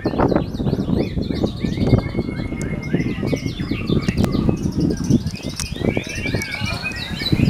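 Caged songbirds singing at once: quick, repeated chirps and whistled phrases that overlap throughout, over a loud, dense low background noise.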